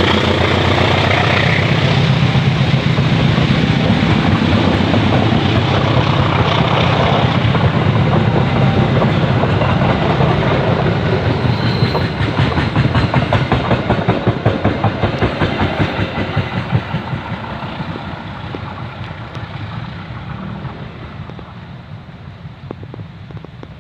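A KAI CC206 diesel-electric locomotive's engine running loudly as the train passes close by, then train wheels clacking rhythmically over rail joints, the sound fading steadily as the train moves away.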